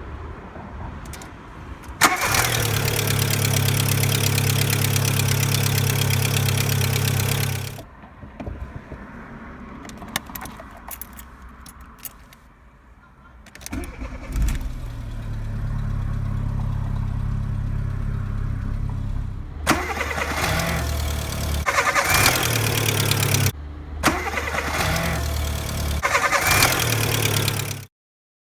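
VW Polo 6N's 1.0-litre four-cylinder petrol engine starting and idling steadily, then stopping. It is started again about halfway through and blipped several times near the end.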